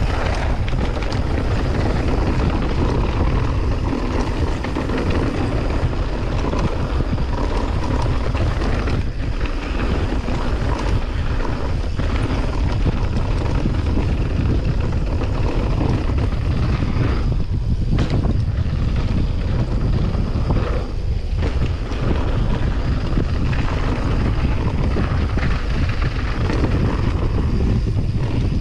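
Wind buffeting a handlebar-mounted action camera's microphone during a fast mountain-bike descent, over the rumble of knobby tyres on gravel and dirt trail, with frequent small rattles and knocks from the bike going over bumps.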